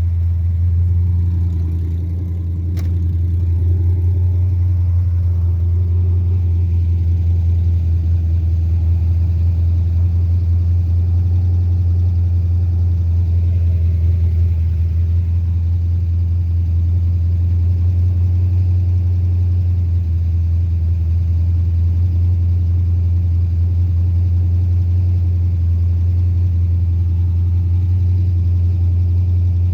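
Carbureted 5.3 LS V8 running steadily at a fast idle, which the uploader puts down to a carburetor, ignition timing or vacuum leak problem.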